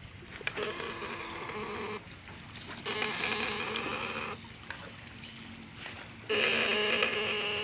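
Homemade contact-breaker ('platina') electric fish shocker run off two car batteries, buzzing in three bursts of about a second and a half each as its switch is pressed to send current into the water.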